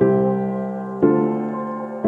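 Background music: keyboard chords, a new one struck about once a second and dying away.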